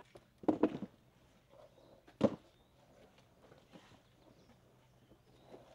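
Plastic crates knocking as they are handled and stacked. A quick cluster of knocks comes about half a second in and a single sharp knock a little after two seconds, over a faint steady hum.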